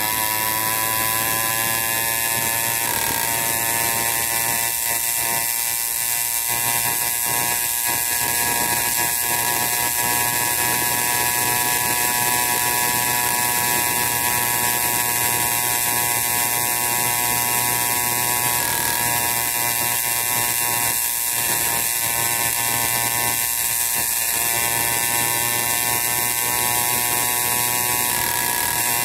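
An 80cc Wildcat PK80 two-stroke motorized-bicycle engine running under way at a steady, high buzz. It climbs in pitch in the first second as the bike speeds up, then holds an even pitch.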